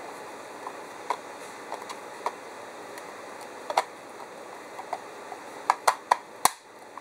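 Plastic case of an RCA DCM425 cable modem being handled and pressed back together: scattered light clicks and taps, then a quick run of sharper snaps near the end.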